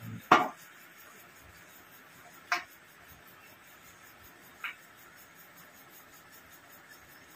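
Tableware sounds at a meal: one sharp knock about a third of a second in, then two lighter clinks a couple of seconds apart, over faint steady room noise.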